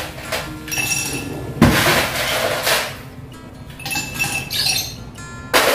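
Ice cubes poured from a plastic bag clattering and clinking into glass tumblers, in several bursts with a sharp knock about one and a half seconds in.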